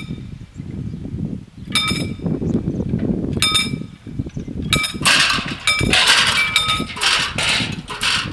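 A level-crossing warning bell struck in single rings, about one every one and a half seconds, as the crossing barriers lower. Wind rumbles on the microphone throughout and gusts hard in the second half.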